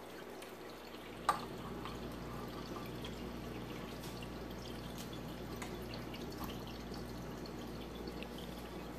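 Wet, sloppy sounds of pork chops being moved around in brown gravy in a glass baking dish, with one sharp clink a little over a second in and a few faint ticks after.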